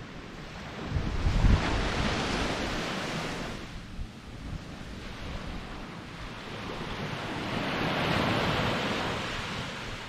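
Small surf washing up on a sandy beach: two swells of wave noise, each building and fading over a few seconds, about six seconds apart. Wind buffets the microphone with a low rumble, strongest early on during the first swell.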